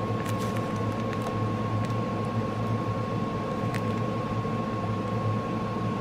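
Steady background hum with a constant high-pitched whine, like a room fan or air conditioner, with a few faint clicks from small plastic bags of diamond painting drills being handled.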